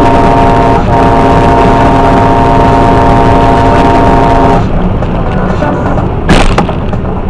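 Truck air horn sounding a long blast with a brief break about a second in, cut off about four and a half seconds in, blown at birds on the road ahead. Under it the truck's engine and tyres drone steadily on the highway. A single sharp knock comes about six seconds in.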